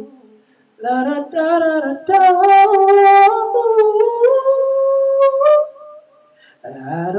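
A man singing unaccompanied into a microphone, R&B-style: a short phrase, then long held notes that climb higher and fade out. A lower sung phrase begins near the end.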